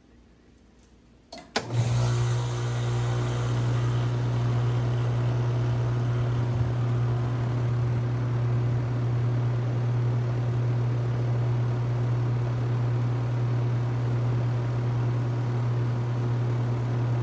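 2-ton Rheem Classic RP14 heat pump starting in cool mode: a sharp click about a second and a half in, then the unit comes on at once with a loud low hum and a rush of fan air, running steadily.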